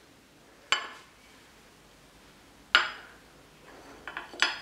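Kitchenware clinking: two single sharp clinks about two seconds apart, then a quick cluster of clinks near the end.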